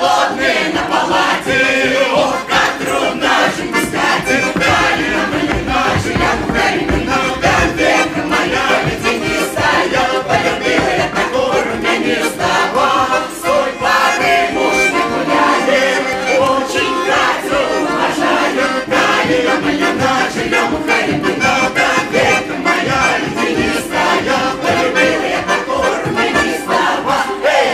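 Russian folk song performed live: an accordion playing a lively tune with a mixed folk choir singing and shouting over it.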